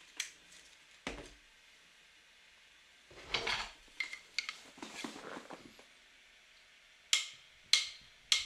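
Scattered sharp clicks and short, light clattering knocks: single clicks near the start and about a second in, a cluster of clatter through the middle, and three sharper clicks near the end.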